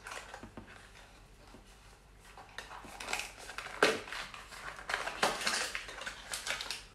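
A small cardboard gift box being unfolded and pulled open by hand: rustling, scraping and crackling of the packaging, getting louder and busier about halfway in, with one sharp snap near the middle.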